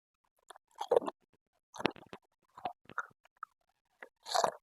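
A person eating spicy mixed seafood papaya salad close to the microphone: irregular, separate chewing and slurping mouth sounds, the loudest about a second in and near the end.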